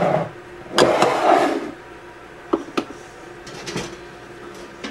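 Kitchen utensils knocking and scraping against glass canning jars: a sharp knock and about a second of clatter, then two light clicks as a plastic canning funnel is set on a jar.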